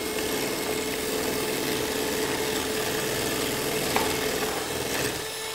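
Electric hand mixer running steadily, its beaters whisking cheesecake batter in a bowl, with one light knock about four seconds in.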